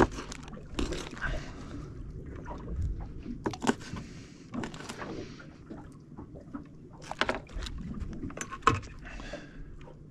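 Irregular knocks, taps and clicks of fishing gear being handled aboard a small boat, over a low steady background of water and boat noise.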